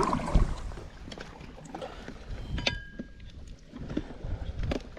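Paddling a stand-up paddleboard on a river: paddle strokes and water sounds with wind rumbling on the microphone, a thump about half a second in and a brief high tone near the middle.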